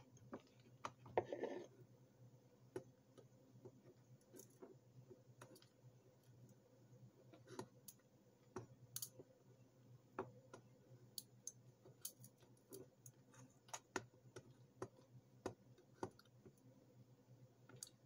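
Faint, irregular small clicks and taps of needle-nose pliers and a toothpick against a plastic cassette tape shell while its pressure-pad felt is being glued back in, over a low steady hum.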